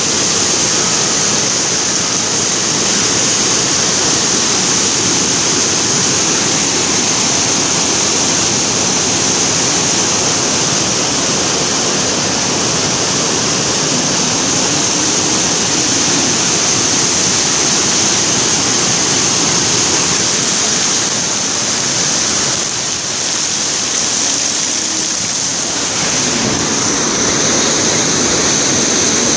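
Rocky mountain stream rushing in white water over boulders: a loud, steady rush of water.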